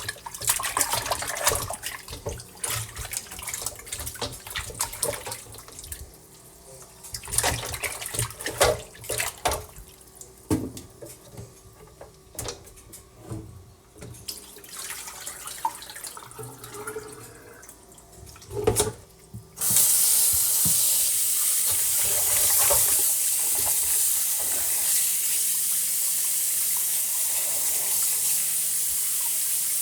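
Scattered knocks and clatter of things handled at a kitchen sink. About two-thirds of the way in, a tap is turned on and water runs steadily into the sink.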